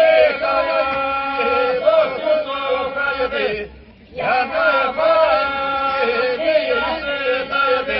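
Voices singing a slow, chant-like melody with long held notes, breaking off briefly about halfway through.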